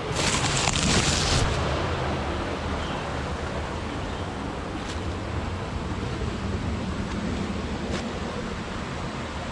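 River water rushing steadily, louder for about the first second and a half.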